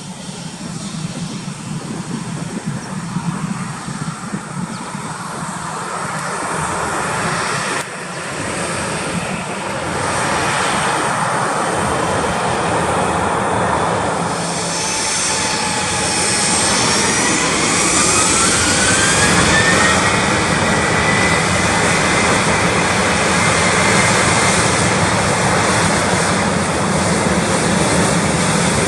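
Airliner engines spooling up for takeoff: a steady roar builds in loudness, and about halfway through a whine rises in pitch and then holds high.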